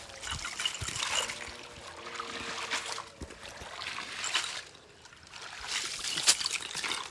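Shallow muddy water sloshing and splashing in several short bursts as a fishing net is hauled and waded through it.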